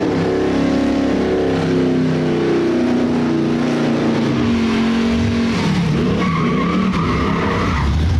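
A pickup truck doing a burnout: its engine is held at high revs while the spinning rear tyres squeal on the pavement. The revs dip and climb again over the last few seconds.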